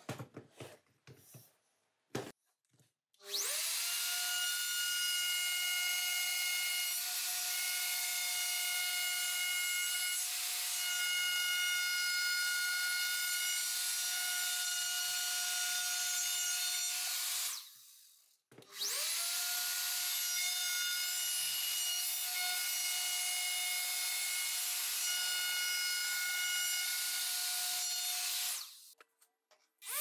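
A few clicks, then an electric plunge router starts up, spinning up to a steady high whine as it cuts along the edge of a small wooden board. It is switched off after about fourteen seconds, started again a second later, and runs about ten seconds more before it stops.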